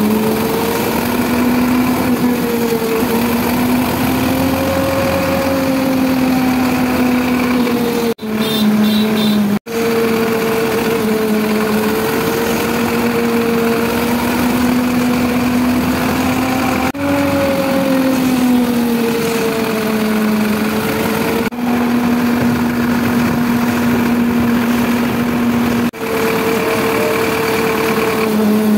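Sonalika 750 tractor's diesel engine running as the tractor is driven along, a steady drone whose pitch rises and falls slightly with the throttle. The sound breaks off briefly a few times.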